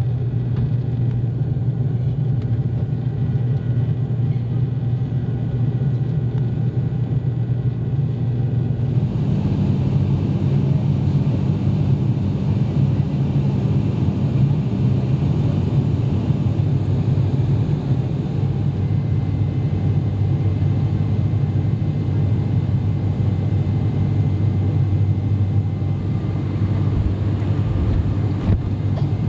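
Cabin drone of an ATR 42-500's Pratt & Whitney PW127 turboprops and six-blade propellers in the climb: a steady low hum with propeller tones. About nine seconds in, the sound shifts and a brighter hiss joins it.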